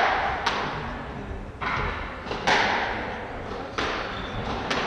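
Squash rally: the ball being struck by rackets and hitting the court walls. It makes sharp cracks with echoing tails, about five of them, roughly one a second.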